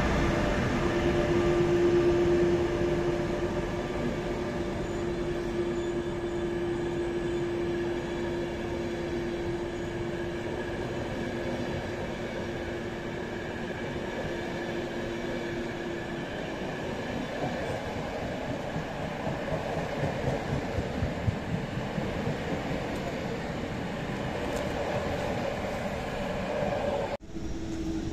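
ÖBB night-train passenger coaches rolling steadily past a station platform, wheels on rail, with a steady hum that fades out a little past the middle and a few wheel clacks later on. The sound drops out abruptly near the end.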